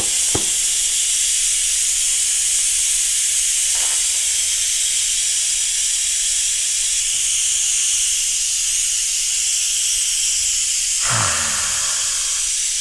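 An electric pressure cooker venting steam through its pressure-release valve in a loud, steady hiss. This is a quick release of pressure once the cooking cycle has finished.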